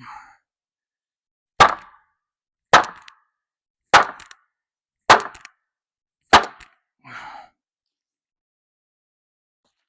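A hammer striking wood in five sharp, evenly spaced blows about a second apart, as old corral boards or a post are knocked loose. Near the end comes a brief, softer scraping rustle.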